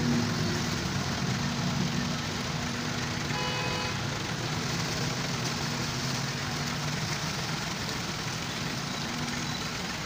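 Diesel engine of a Hyundai wheeled excavator running steadily while it digs and lifts a bucket of drain sludge.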